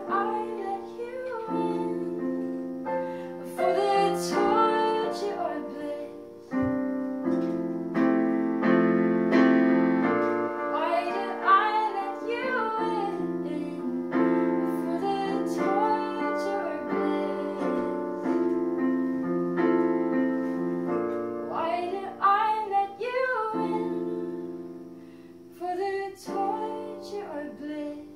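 A woman singing while she accompanies herself on a digital piano, her voice over held chords.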